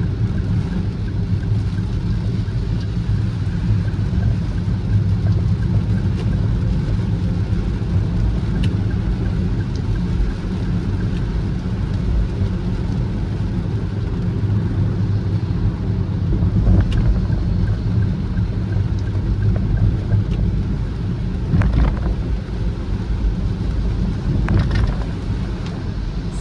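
Car driving in the rain: a steady low rumble of engine and tyres on the wet road, with a few short clicks in the second half.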